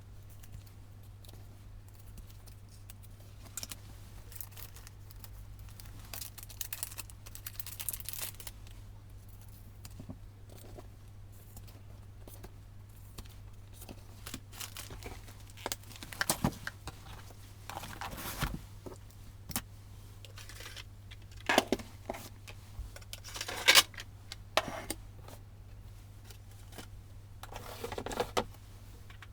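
Paper handling at a desk: intermittent tearing, peeling and crinkling of paper and sticky notes with small clicks, sped up to double speed. A steady low hum runs underneath.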